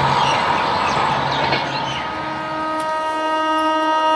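An Indian Railways electric locomotive's horn starts about halfway in and holds one long steady multi-tone blast as the train approaches. Before it comes a loud, even rushing noise.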